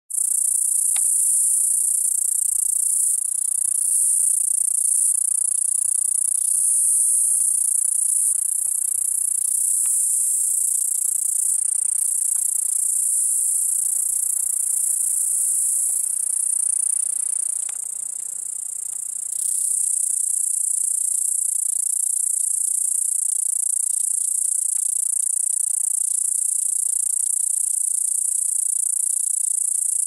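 Cicada singing: a continuous, high-pitched buzz that drops in level briefly a little past halfway, then carries on at full strength.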